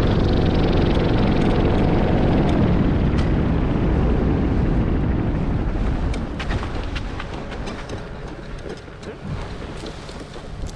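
Paramotor engine running at low power under heavy wind rush during a landing approach. The noise dies away about six seconds in at touchdown, and scattered light clicks follow as the wing comes down.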